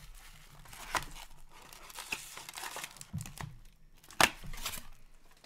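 Plastic wrap and cardboard packaging of a 2020-21 Upper Deck SPx hockey card box crinkling and tearing as it is unwrapped and the box is opened by hand. There is a sharp snap about a second in and a louder one just after four seconds.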